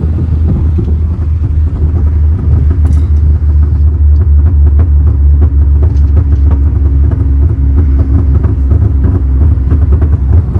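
Stage 2 ECU-remapped Maruti Suzuki Baleno's engine and exhaust heard from inside the cabin, a loud, steady low drone.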